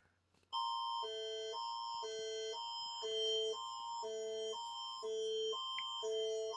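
Emergency alert attention signal, the Canadian Alerting Attention Signal that opens an Alberta Emergency Alert: chords of steady electronic tones alternating high and low about every half second, starting about half a second in.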